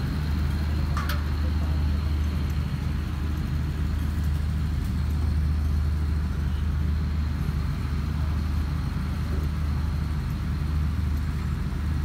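A large engine idling: a steady low drone that holds the same pitch throughout.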